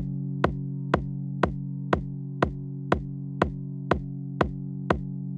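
Afro house track: a drum-machine kick hitting on every beat, about two a second, over a held synthesizer chord.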